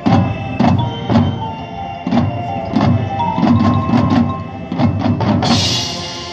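Band music: sharp, irregularly spaced drum and percussion hits over held chords, with a cymbal crash about five and a half seconds in that rings on to the end.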